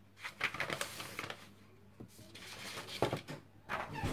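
Sheets of printing paper rustling as they are leafed through and one is picked up, in a few short crackly bursts.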